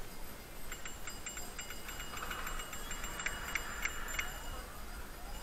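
Bicycle bell rung over and over for about three and a half seconds, each strike ringing on, over a low rumble of wind and tyres.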